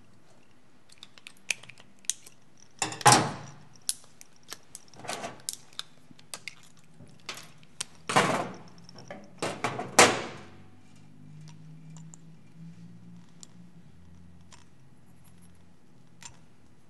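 Small metal hand tools and parts being handled on a steel workbench: scattered light clicks and clinks, with three louder clanks about three, eight and ten seconds in that ring on briefly.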